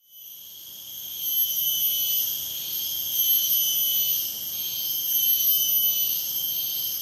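Rainforest insects droning in a steady high-pitched whine with a slow pulse, fading in over the first second or so.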